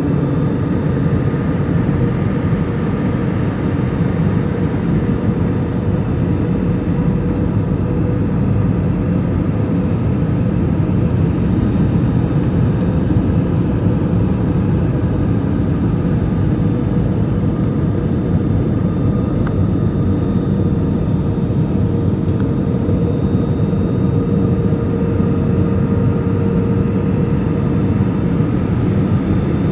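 Steady low roar of a jet airliner in flight, heard from inside the cabin: engine and airflow noise, with a faint steady hum running through it.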